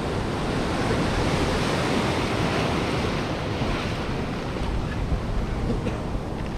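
Ocean surf washing steadily, with wind blowing across the microphone.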